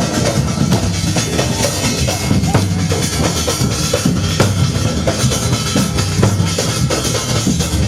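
Loud drum music for a Gair dance, a steady dense beat of deep drum strokes and sharp hits.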